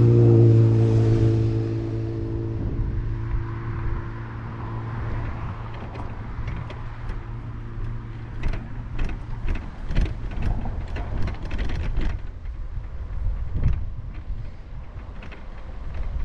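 Steady low rumble of wind and rolling motion along a paved street, with a pitched hum fading out over the first two seconds and a scatter of sharp clicks and ticks in the middle.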